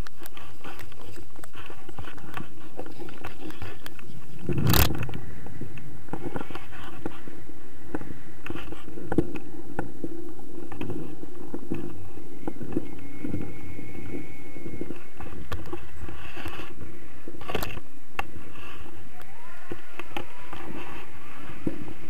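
Steady wind rushing over an action camera's microphone on a tandem paraglider during launch and flight. Two sharp knocks on the camera come about five seconds in and again about eighteen seconds in.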